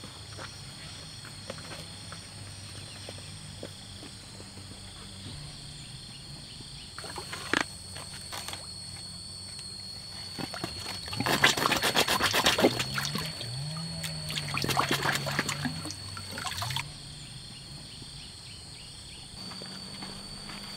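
Water splashing and trickling, loudest for about five seconds past the middle, over a steady high-pitched drone.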